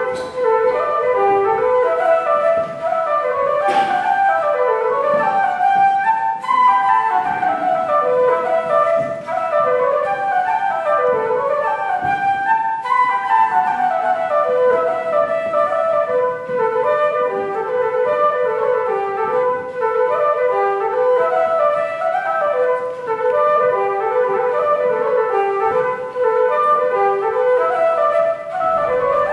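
Wooden Irish flute playing a traditional tune solo, a quick run of stepping notes.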